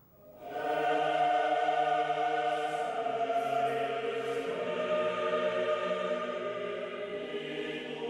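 A choir singing slow, long-held chords, fading in just after the start.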